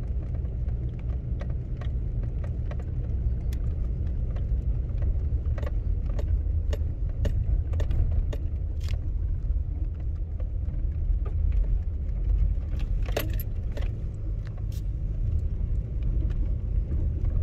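Car driving slowly, heard from inside the cabin: a steady low road and engine rumble, with scattered light clicks and rattles throughout and a short cluster of sharper ones about thirteen seconds in.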